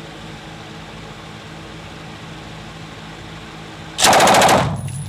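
A 7.62 mm machine gun fires one short burst of rapid shots, lasting about half a second, about four seconds in. A room echo trails off after it.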